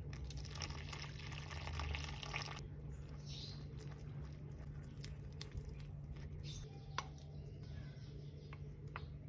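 Water poured into a bowl of flour for about two and a half seconds, then a spoon stirring the batter, with a few sharp clicks of utensils against the bowl.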